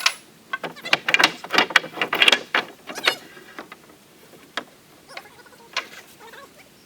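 Mechanical clicking and clattering: a dense run of quick clicks and knocks for about three seconds, then a few single clicks spaced out.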